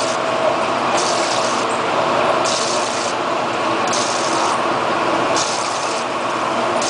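PROMPT EDM-432CS/CNC-1 electric discharge machine running, a steady machine noise with a high spraying hiss that comes and goes about every second and a half.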